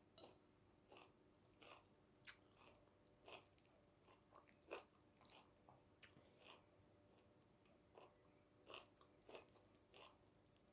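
Mouth-close chewing of a mukbang meal of rice with dill greens and bacon: faint, irregular wet clicks and small crunches.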